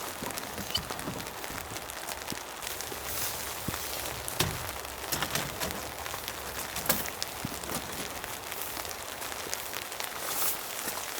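Steady rain falling, with many individual drops landing as short sharp ticks and a few louder hits.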